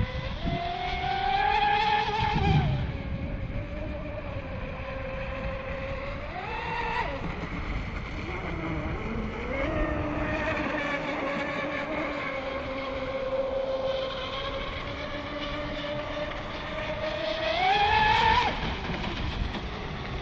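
Miss Geico 36 RC racing boat's motor, a steady pitched whine that climbs sharply in pitch with throttle bursts about half a second, 7, 9.5 and 17.5 seconds in, then holds. It is loudest near the start and again near the end, as the boat runs at speed.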